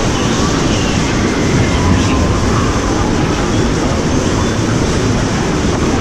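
Steady rush of churning water in a river-rapids ride channel, a constant noise with a heavy low rumble.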